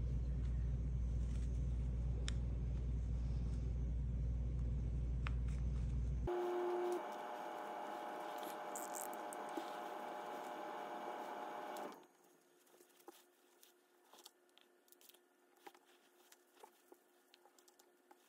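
Steady low background hum with faint clicks and rustles of straight pins and fabric being handled as bias tape is pinned to a curved edge. The hum cuts off abruptly about six seconds in, giving way to a thinner hiss with a faint steady whine. About twelve seconds in that also stops, leaving near quiet with small ticks and rustles of handling.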